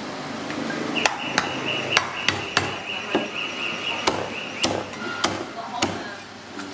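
Cleaver chopping a snake body into pieces on a thick wooden chopping block: about ten sharp chops at an uneven pace.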